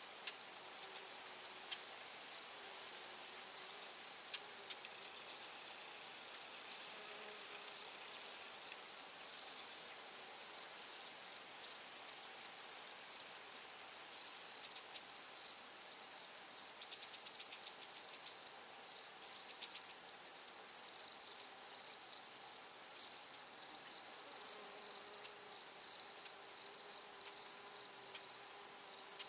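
A chorus of crickets trilling continuously, a steady, dense, high-pitched buzz that does not let up.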